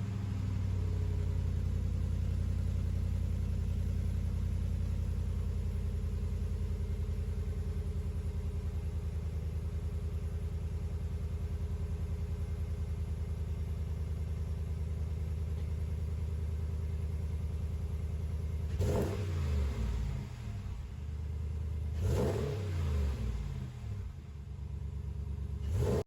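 2019 Ram Rebel pickup's exhaust through a B2 Fabrication Moderate Muffler, with the factory resonators still in place, idling steadily just after starting, then revved three times in the last seven seconds.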